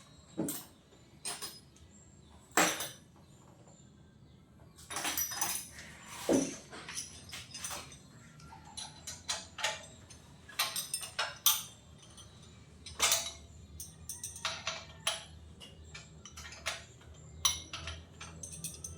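Hand tools clinking and knocking on metal as the lower fork clamp on a Kawasaki HD3's front forks is undone, in irregular sharp clicks, a few of them much louder.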